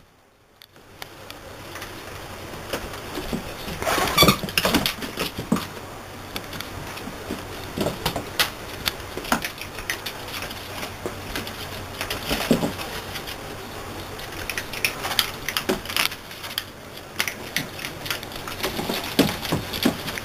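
Puppies play-fighting and scrambling on a blanket: irregular scuffling, pattering and rustling with scattered clicks and knocks, in clusters a few seconds apart.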